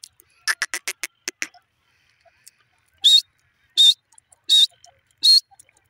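Grey francolin calling: a quick run of short, clipped notes about half a second in, then from about three seconds in loud, shrill notes repeated roughly every three-quarters of a second.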